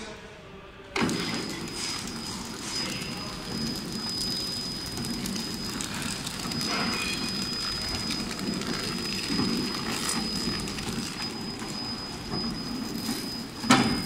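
Horizontal pillow packing machine running while it wraps charging cables in film: a steady mechanical rumble and clatter with a thin, steady high whine. The sound comes in sharply about a second in, and there is a single sharp knock near the end.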